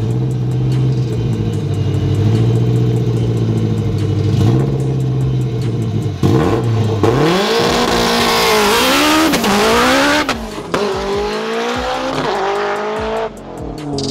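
Drag race car engine holding a steady high note on the line for about six seconds, then launching down the strip. Its pitch climbs and drops back several times through the gear shifts, with a loud rush of noise from about seven seconds in, before easing off near the end.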